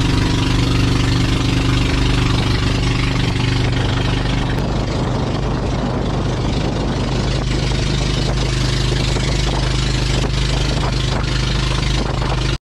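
A pump boat's engine running steadily under way, with wind buffeting the microphone. The sound cuts out briefly just before the end.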